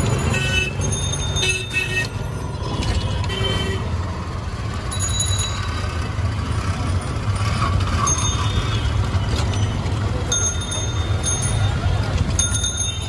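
Busy street traffic: auto-rickshaw engines running in a steady low rumble, with short horn toots and bell rings every second or two and passers-by talking.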